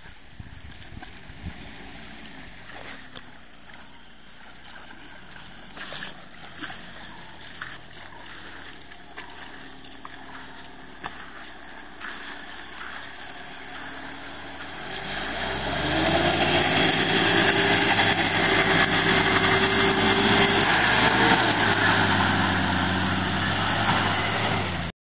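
Four-wheel-drive jeep engine driving through a shallow river, faint at first and then loud from about fifteen seconds in as it comes close, with water splashing around its wheels. The sound cuts off suddenly near the end.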